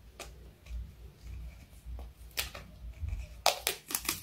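A cat's claws scratching and picking at textured wallpaper: a few separate sharp scrapes, then several in quick succession near the end.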